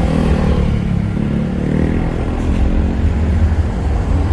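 City bus running, heard from inside the cabin: a steady, loud low rumble of engine and road with an engine drone over it.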